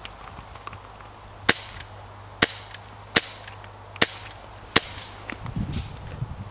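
Airsoft guns firing single shots: five sharp cracks, spaced roughly a second apart.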